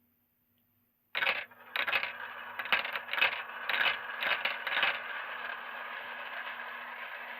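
Marbles clattering down a marble run: a sudden string of sharp clicks and rattles starting about a second in, settling after a few seconds into a steady rolling sound.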